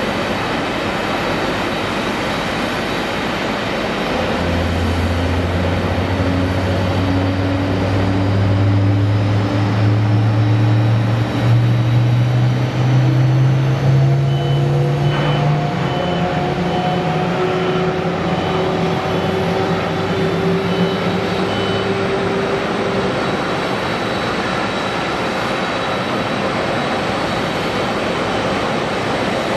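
Electric train running, its motors whining in a stepped rise in pitch as it speeds up, over steady running rumble.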